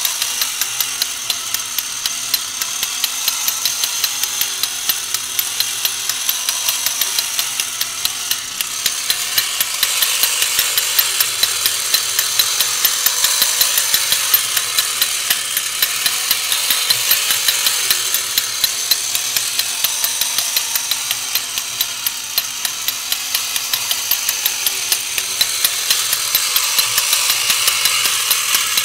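Battery-operated 1970s Horikawa Piston Engine Robot toy running: its small electric motor whirs while the plastic gears and pumping pistons clatter in a steady, rapid clicking rhythm. It gets somewhat louder about ten seconds in.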